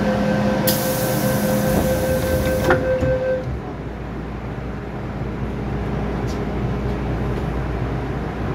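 MTR M-Train heard from inside a carriage as it pulls away from the platform: a steady whine with a high hiss over the first few seconds, then a low rumble of the train running in the tunnel.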